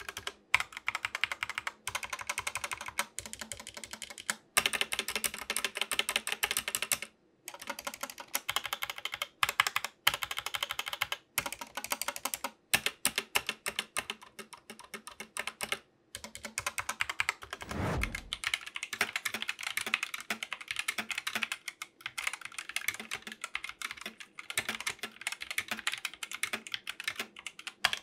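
Steady typing on a GK61 60% mechanical keyboard with stock, unlubed Gateron optical yellow linear switches: rapid key clicks and bottom-outs, broken by a few short pauses. About 18 seconds in, a brief low falling whoosh sweeps by, and the typing carries on on a keyboard with stock Gateron optical silver switches.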